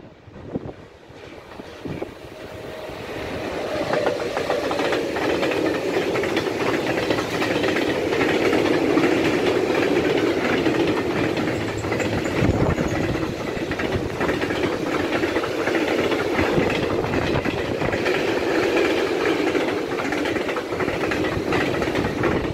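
Freight train of tank wagons passing close by. It grows louder over the first few seconds as it approaches, then holds a steady rumble with the rhythmic clatter of wheels over rail joints.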